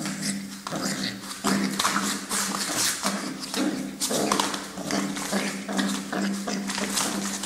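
Sounds of a mastiff dog close by: irregular taps and scuffling noises over a steady low hum.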